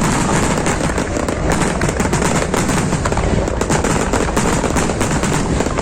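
Aerial fireworks going off close by in a dense, unbroken barrage of rapid bangs and crackles.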